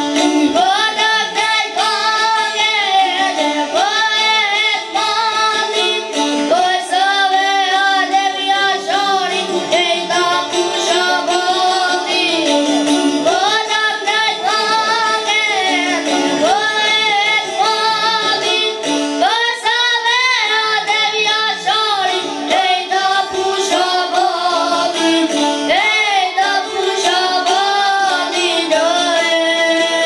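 A young boy singing an Albanian folk song in ornamented, wavering phrases, accompanied by plucked çifteli, the two-string long-necked Albanian lute.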